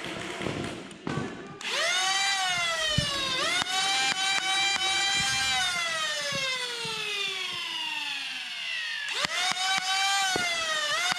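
Electric motors of a flywheel foam-dart blaster spinning up with a sharp rising whine, then coasting down in a long falling whine. Clicks of darts being fired come in between, and it revs up again twice near the end.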